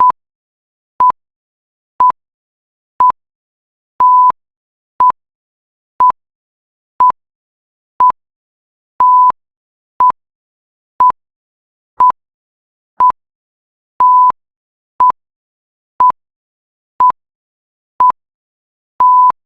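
Electronic countdown ticking: a loud, short beep at one steady pitch about once a second, with a longer beep every fifth second.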